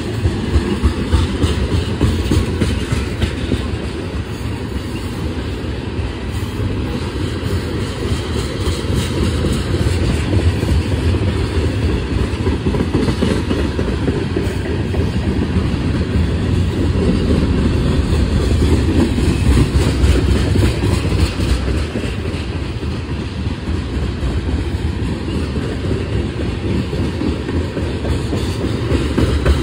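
CSX mixed freight train rolling past, its cars making a loud, steady rumble with rapid clickety-clack of wheels over the rail joints.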